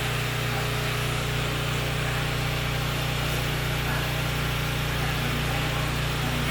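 Portable generator engine running steadily, a constant low hum with a hiss above it.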